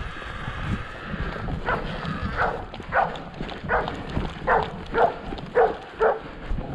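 Tracking dog barking about eight times in quick succession, roughly one and a half barks a second, starting a couple of seconds in. This is typical bay barking at found game. Underneath is the rustle and thud of someone running over the forest floor.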